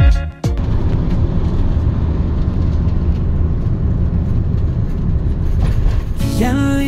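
Steady road and engine rumble inside a motorhome cab travelling at speed. A song with singing starts near the end, and the tail of guitar music is heard for the first half-second.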